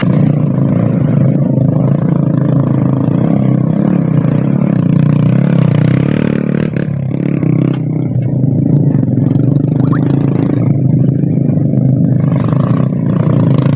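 Small four-stroke underbone motorcycles (Honda Revo) running hard at high revs as they climb a slope, straining under heavy loads of oil palm fruit bunches in side baskets. The engine note is steady, with a slight dip in loudness about halfway through.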